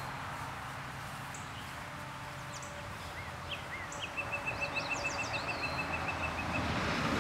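Songbirds calling over a steady outdoor hiss: a few scattered chirps and whistles, then a rapid, even trill of about eight notes a second that runs for a little over two seconds past the middle.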